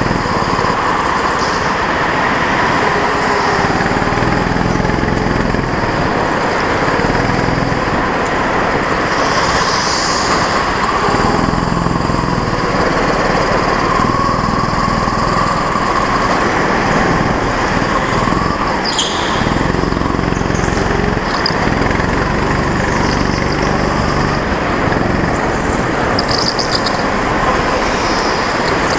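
Go-kart engine running loud and close under an onboard camera. The engine note shifts up and down every few seconds as the kart goes through corners, over a steady rushing noise.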